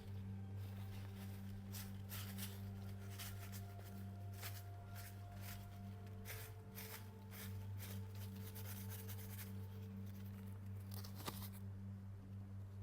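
Soft rustling and light scraping as things are handled during a tea ceremony, in short irregular strokes over a steady low hum, with a faint ringing tone hanging in the background.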